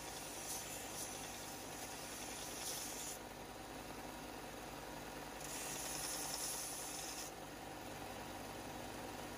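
Bench-top belt sander running steadily, with two spells of hissing as a plasma-cut steel wrench is pressed against the moving belt to clean up its edges: one for the first three seconds, another of about two seconds past the middle.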